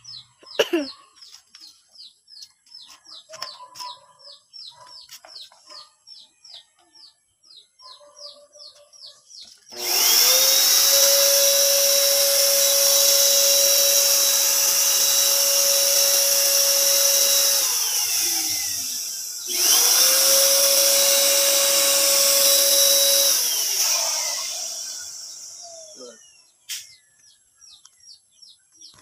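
Paint Zoom AS233 650 W electric paint sprayer's turbine switched on twice while spraying. It spins up to a steady whine with a loud rush of air, runs about eight seconds and winds down, then starts again for about four seconds and winds down slowly. Before it starts, a bird chirps rapidly.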